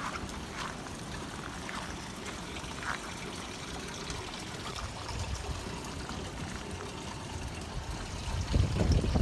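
Steady outdoor rushing noise. Near the end a gust of strong typhoon wind buffets the microphone with a loud low rumble.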